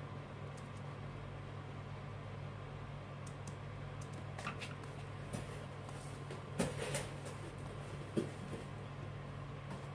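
A steady low hum, with a few brief rustles and taps from a folded paper model being handled on a wooden desk; the loudest comes a little past halfway.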